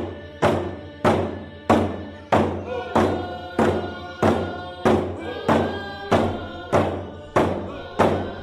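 Grand Ronde canoe song sung over a steady hand-drum beat, about one and a half drum strikes a second.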